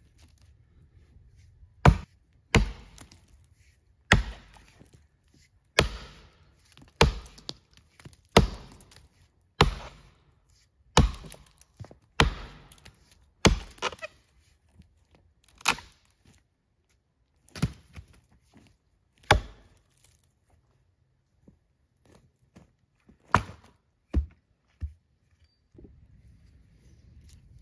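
Axe chopping into a rotten, moss-covered dead tree trunk: about a dozen sharp blows, one every second or so, then after a pause a few lighter knocks.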